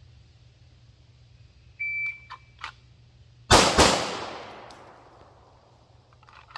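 A shot timer beeps once; after a couple of faint clicks, a PSA Dagger 9mm pistol fires two quick shots about a third of a second apart, the echo fading over the next two seconds.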